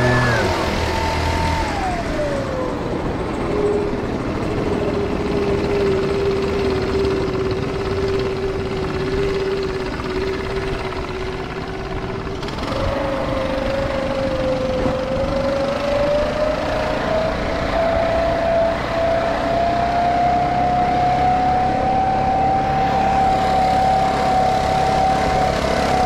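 Hustler Trimstar 52-inch walk-behind mower running under load, a steady engine-and-blade whine over dense mechanical noise. The pitch drops in the first couple of seconds, holds steady, jumps up suddenly about halfway through and then slowly climbs.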